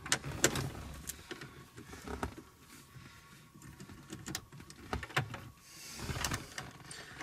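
Light clicks and taps at irregular intervals, from small screws and a metal nut driver being handled at a car's dashboard trim, with a brief soft rustle about six seconds in.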